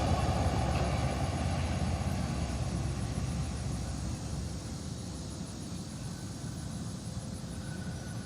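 Frontier Airlines jet airliner's engines rumbling and fading steadily as the plane moves away.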